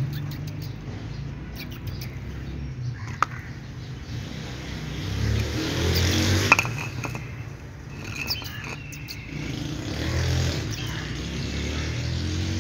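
Outdoor ambience: a steady low rumble with faint bird chirps and a couple of sharp clicks.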